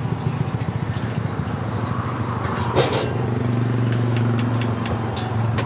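A motor engine running steadily nearby, its low hum growing louder and smoother about three seconds in. A few sharp clicks from tongs and plastic takeaway containers sound over it.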